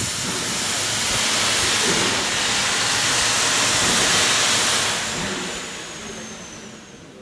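Steam locomotive letting off steam: a loud, steady hiss that builds over the first second, holds, then dies away over the last two seconds.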